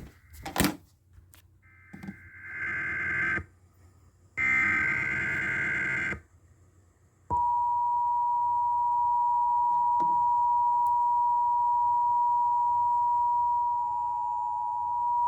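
Two raspy bursts of an Emergency Alert System SAME digital header. Then, about seven seconds in, the EAS two-tone attention signal starts abruptly and holds a steady, piercing dual tone for about eight seconds: the warning that an alert message follows.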